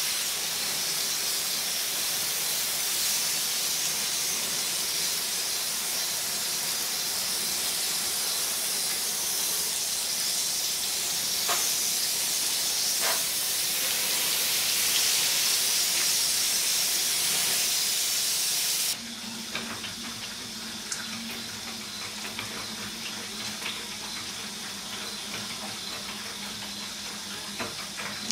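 Water sprayed from a hose nozzle into the hot steel cabinet of a smoker, hissing steadily as it flashes to steam to loosen residual grease. About two-thirds of the way through the spray cuts off abruptly, leaving a quieter low steady hum and faint ticks.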